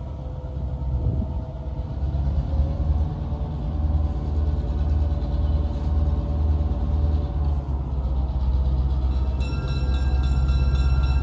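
A pair of EMD SW8 diesel switcher locomotives, each with a two-stroke V8 567 engine, approaching with a short freight. The deep engine rumble grows steadily louder, and a steady high chord-like tone joins near the end.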